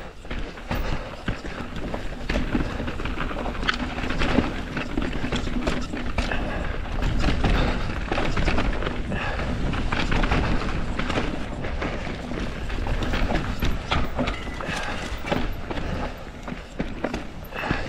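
Mountain bike riding down a dirt and rock singletrack: tyres rolling and crunching over the ground, with the bike rattling and clattering over bumps and rocks.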